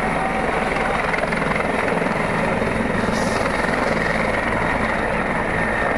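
Helicopter running steadily, a dense continuous rotor and engine noise.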